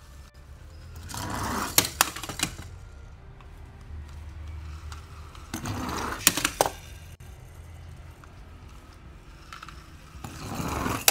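Small die-cast toy cars shoved by a plastic monster-truck toy and rolling across a corrugated plastic board: three rising rushes of rolling noise, each ending in a few sharp plastic-and-metal clacks.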